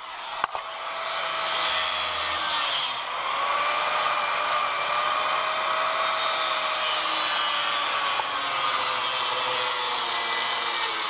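Corded angle grinder cutting into steel, throwing sparks. It starts about half a second in and runs steadily with a whine whose pitch sags slightly at times as the disc bites into the metal.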